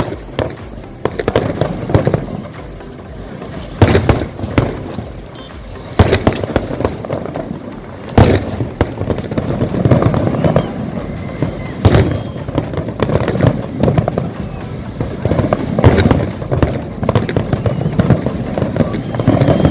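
Aerial fireworks display: loud sharp bangs every few seconds amid continuous crackling bursts, with music playing.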